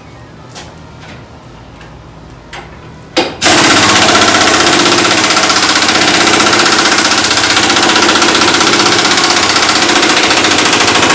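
A few light tool clicks, then about three seconds in a pneumatic impact wrench starts hammering loudly and keeps going. It is working on the seized front torsion-bar adjuster bolt, which isn't breaking loose.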